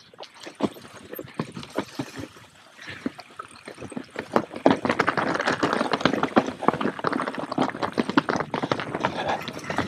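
Mountain bike descending a rocky trail: tyres crunching over loose stones with rapid clattering and rattling, louder from about four seconds in.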